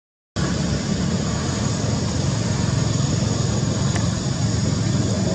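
A vehicle engine running with a steady low rumble. It comes in abruptly after a split second of silence at the very start.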